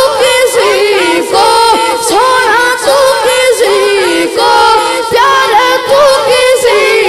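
Boy singing a naat solo into a microphone, unaccompanied by instruments, his voice gliding and ornamenting each phrase over a steady held drone.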